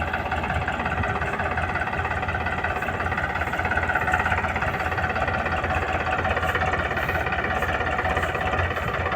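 Diesel engine of heavy machinery running at a steady speed, an even engine drone that neither revs up nor dies down.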